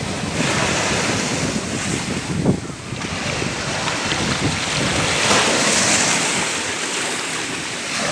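Ocean waves breaking and washing on a shore, the surf swelling and easing twice, with wind buffeting the microphone.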